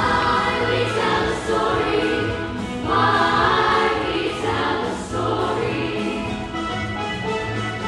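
Music: a group of voices singing together over instrumental accompaniment with a repeating bass line.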